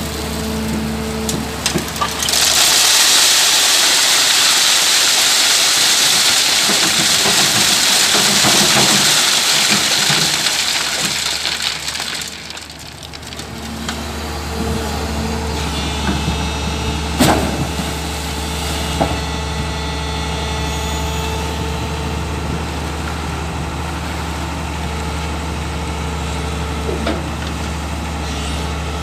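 LiuGong crawler excavator's diesel engine running steadily. From about two seconds in, a loud rushing rattle lasts some ten seconds as the bucket's load of river gravel is tipped onto a wire screening mesh. After that the engine carries on under load, with a few sharp metal knocks as the bucket swings back and goes into the water.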